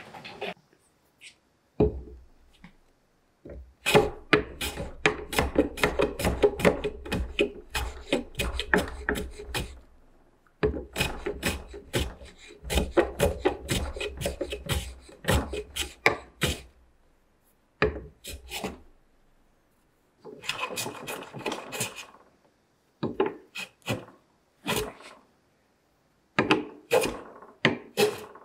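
Metal hand bench plane shaving wood in short, quick strokes across the top of a table leg and apron corner. The strokes come several a second in runs of a few seconds, with short pauses between runs.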